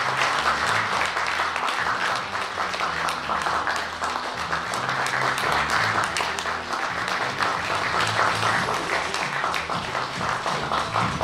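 Audience applauding steadily, with background music playing low underneath. The clapping stops abruptly at the end.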